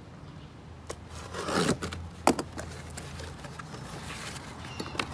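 Cardboard being handled: a utility knife slitting the tape on a small box and the flaps scraping and rubbing as it is pulled open, with a scraping sweep about a second and a half in and a sharp snap just after two seconds.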